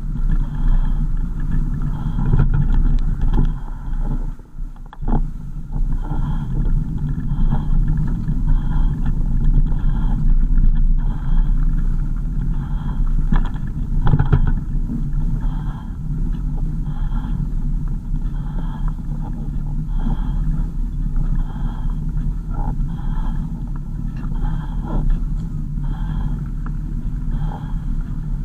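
Road and engine noise of a moving car, with a steady low rumble. A faint high tick repeats about once a second.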